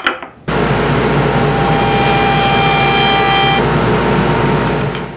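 Table saw with a dado blade running and cutting a groove in a cherry board. The sound starts suddenly about half a second in, and a higher ringing whine sits over it for about a second and a half in the middle. It cuts off abruptly at the end.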